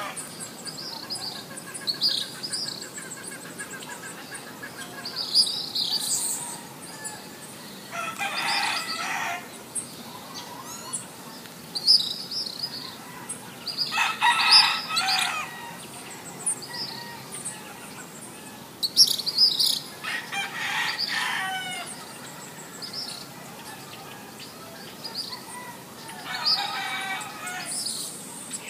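A rooster crowing four times, about six seconds apart, with small birds chirping in between.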